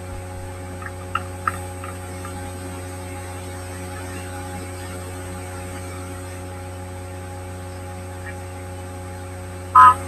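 Steady low electrical hum with a buzz of higher steady tones over it, broken by a couple of faint clicks a second or so in and one short, loud high-pitched sound near the end.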